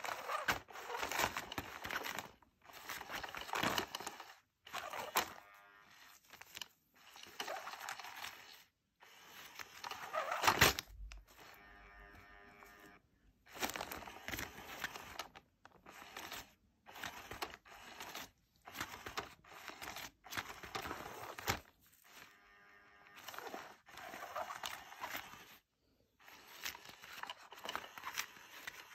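Electronic cat toy running under a nylon cover: its hidden wand sweeps about beneath the fabric with rustling swishes that start and stop every second or two. A faint motor hum shows in the quieter stretches.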